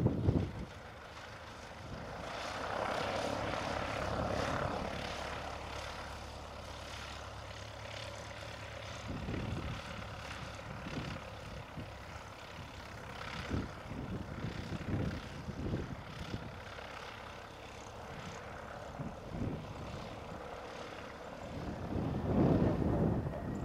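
Piper PA-28 Cherokee's piston engine and propeller running at low power as the light aircraft taxis and turns, a steady drone. Gusts of wind rumble on the microphone, strongest near the end.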